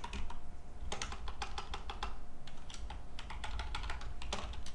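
Typing on a computer keyboard: an irregular run of quick key clicks as text is deleted and retyped.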